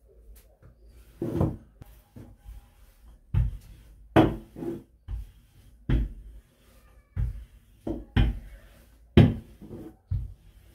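Rolling pin working dough on a worktop: a series of dull knocks, irregularly spaced at roughly one a second.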